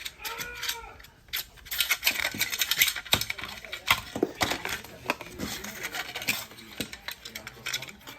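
Hands pulling open a charging cable's packaging: irregular crinkling, rustling and sharp clicks.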